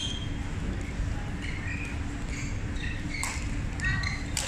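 Badminton hall sounds: scattered short high squeaks of court shoes on the sports floor and a few sharp racket-on-shuttlecock hits, two of them in the last second and a half, over a steady low rumble of the large hall.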